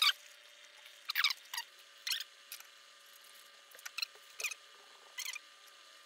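A series of short, high-pitched squeaks, about eight of them, some sliding down in pitch, as the plywood bow panel is pushed and shifted against the boat's wooden stem and clamps. A faint steady hum lies under them.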